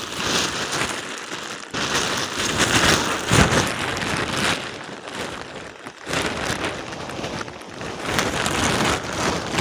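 Thin plastic rain cape rustling and crinkling in irregular surges as it is pulled on, with rain pattering.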